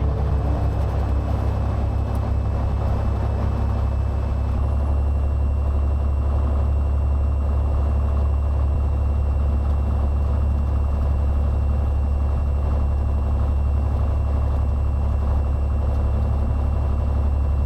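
Cessna 182T's six-cylinder Lycoming engine and propeller running steadily at taxi power, a loud, low drone heard from the cabin. The drone grows a little stronger about four seconds in.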